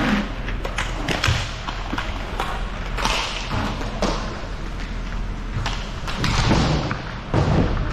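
Inline hockey play on a plastic tile floor: skate wheels rolling, with scattered sharp clacks of sticks and puck and dull thumps throughout.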